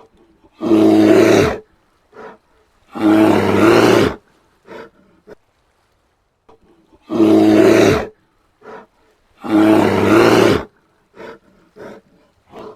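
Brown bear roaring: four loud roars of about a second each, coming in two pairs, with short, much quieter sounds in between.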